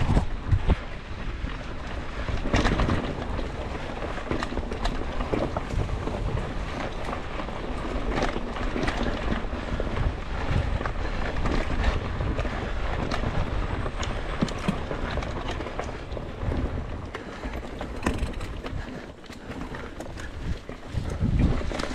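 Mountain bike riding down a dirt forest trail: tyres rolling over the ground, wind buffeting the microphone, and frequent knocks and rattles as the bike goes over bumps and roots.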